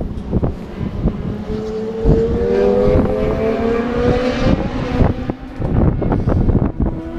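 A racing vehicle's engine out on the circuit, its note climbing steadily for about three seconds as it accelerates. Another engine note comes in near the end. Wind buffets the microphone throughout.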